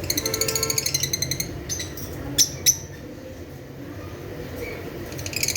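Lovebirds chattering: a rapid run of high-pitched chirps for about a second and a half, two sharp single chirps a second later, then another rapid chirping run near the end.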